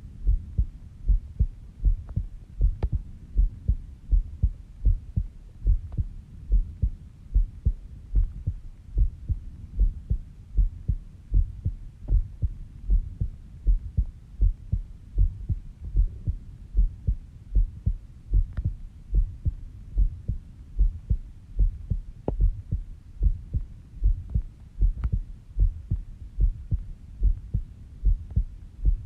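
A human heartbeat recorded close up while the person sleeps: steady, slow, low thumps at a resting rate of about 70 beats a minute.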